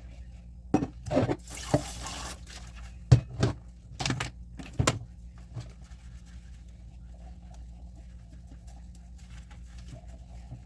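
Dishes clinking and knocking against each other and the sink while being washed by hand, about seven sharp knocks in the first five seconds, with a brief gush of tap water about two seconds in.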